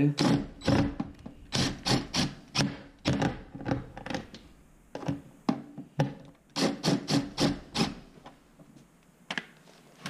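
Cordless drill and hands working the screws and sheet-metal cabinet of a PTAC unit: a run of sharp knocks, clicks and scrapes in irregular clusters that thins out after about eight seconds, with one more knock near the end.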